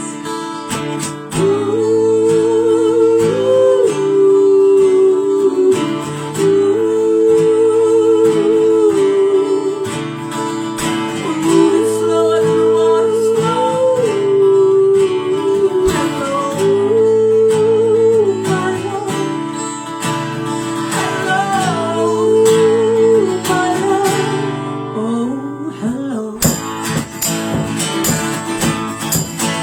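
Acoustic guitar music with a held, wavering melody line in five phrases of two to three seconds each, most likely wordless singing. Near the end the melody drops out and the guitar strums on alone.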